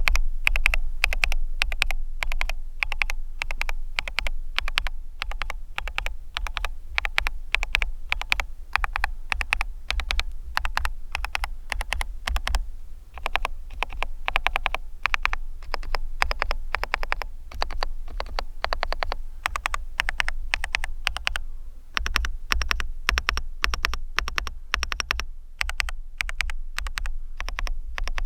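Dareu EK87 PRO 8K wired mechanical keyboard with linear Cloud switches being typed on fast and continuously, with a few brief pauses between runs of keystrokes.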